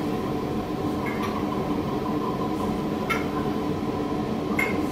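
Whisky being poured from a bottle into a small tasting cup, with three light clinks of the bottle against the cup: about a second in, about three seconds in, and near the end. A steady background hum runs underneath.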